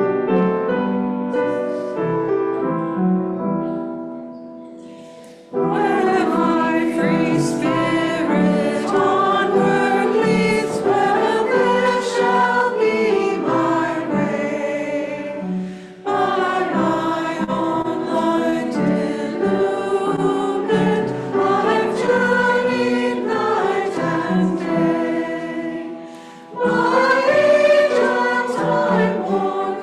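A piano chord dies away, then a congregation begins singing a hymn with piano accompaniment about five seconds in, dropping briefly twice between phrases.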